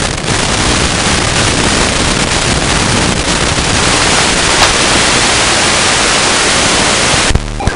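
Loud, steady hiss of static from the analog FPV video link's audio channel as the radio signal breaks up and is lost. The hiss drops sharply near the end.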